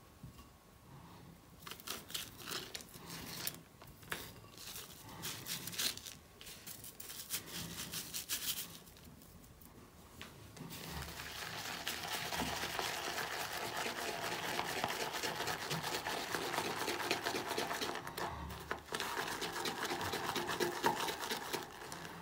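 Shaving brush whipping shaving cream into lather in a ceramic bowl: a wet, crackly squishing. It comes in short spurts at first, then runs steadily from about halfway through.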